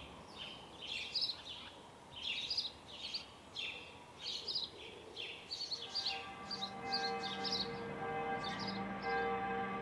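Songbirds singing, short chirping phrases repeated about once a second. About six seconds in, background music of long held notes fades in beneath the birdsong.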